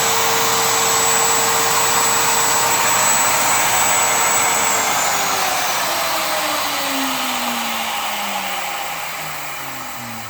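Router in a router lift running free at full speed with a steady high whine, no bit cutting. About five seconds in it is switched off and winds down, its pitch falling and fading.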